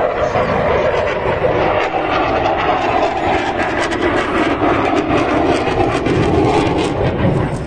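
Fighter jet's engine noise as a delta-wing jet flies past, loud and steady, slowly dropping in pitch as it goes by.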